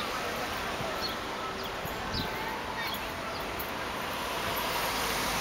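Steady outdoor background noise of wind and traffic, with a few short, high chirps in the first half.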